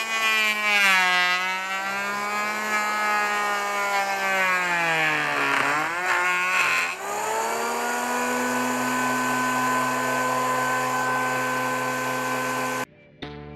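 Electric hand planer mounted upside-down in a homemade thicknessing jig, running with a high whine whose pitch sags as the blades cut a pallet board, dropping lowest about five to six seconds in, then rising back to a steady no-load pitch once the board is through. The sound cuts off suddenly near the end.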